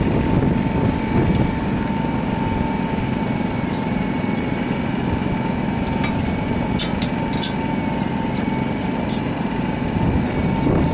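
A machine running steadily with a constant whine over a low hum, and a few sharp clicks about seven seconds in.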